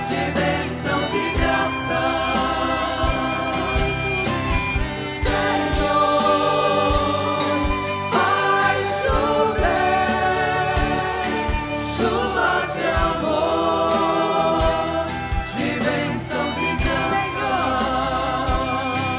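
Choir and congregation singing a devotional song together, with instrumental accompaniment keeping a steady low beat underneath.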